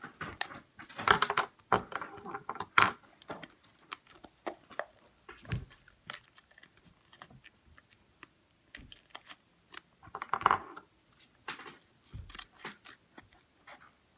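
Craft scissors snipping paper, with paper rustling and crinkling as it is handled between cuts, heard as irregular small clicks and short crinkles.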